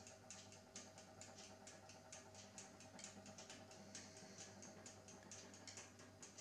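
Faint steady mains hum from the variac transformer feeding a toaster oven load, with light irregular ticking a few times a second over it.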